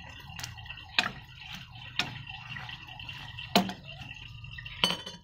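Metal ladle knocking and clinking against a steel pot as it presses a heap of raw mustard greens down into the soup. There are about five sharp clinks at uneven intervals, with the leaves rustling under the ladle and a steady low hum beneath.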